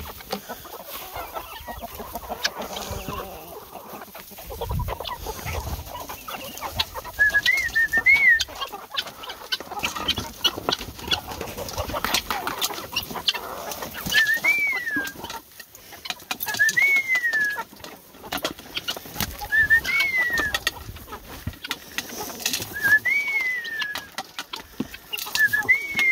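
A flock of guinea fowl and chickens feeding on scattered cracked corn: pecking and falling grain make many small clicks. From about seven seconds in, a bird in the flock gives a repeated whistled call every two to three seconds, each a short note followed by a rising-and-falling sweep.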